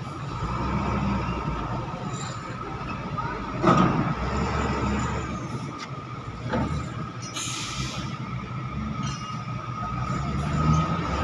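Heavy diesel machinery running in a container yard: the low rumble of truck and cargo-handling engines with a steady whine over it. There is a single knock about four seconds in and a short burst of air hiss a few seconds later.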